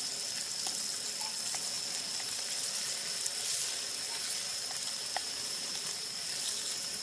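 Food frying in an oiled pan: a steady sizzle with a few faint pops.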